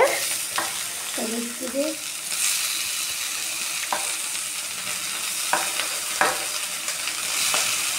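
Eggplant sticks and onions frying in oil in a steel wok. The sizzle grows stronger about two seconds in, and several sharp clicks come as more pieces drop into the pan.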